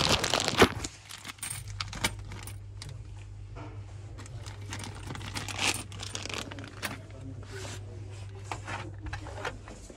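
Old coins rattling and clinking in a metal tin as the tin is picked up and handled, after a loud rustle of handling near the microphone in the first second.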